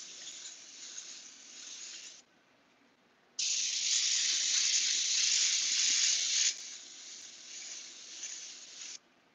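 Iwata Eclipse airbrush hissing as it sprays paint to shade the painting, in spurts on the trigger. A steady hiss stops about two seconds in. After a pause of about a second it comes back much louder for about three seconds, then runs on more quietly and cuts off near the end.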